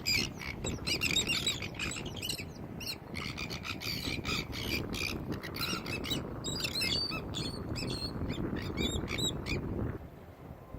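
Many birds calling at once in a flock: dense, overlapping short high calls over a steady low rush of noise. Everything cuts off abruptly about a second before the end.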